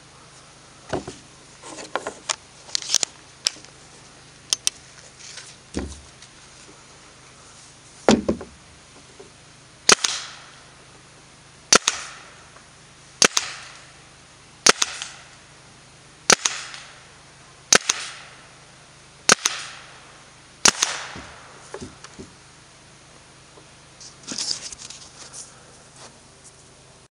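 Tippmann TPX paintball pistol, fitted with a home-milled valve, firing single shots over a chronograph: a string of about eight sharp pops roughly one and a half seconds apart in the middle, with lighter clicks and knocks of handling before them and a noisier rustle near the end.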